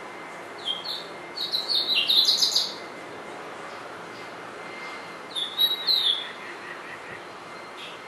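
Male house finch singing: a rapid, jumbled phrase of high warbled notes lasting about two seconds, starting just under a second in, then a shorter phrase about five seconds in.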